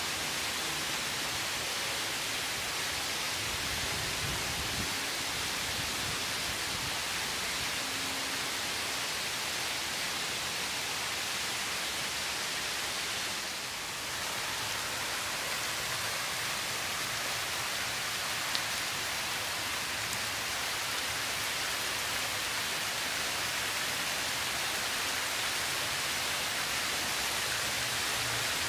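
Water falling in sheets from a row of fountain weirs into a shallow trough, a steady splashing rush that dips briefly about halfway through.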